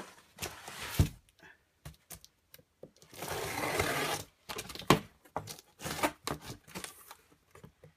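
Cardboard shipping box being handled and opened: scattered knocks and scrapes of cardboard, with a sharp knock about a second in, a rasping scrape lasting about a second near the middle, and another sharp knock shortly after.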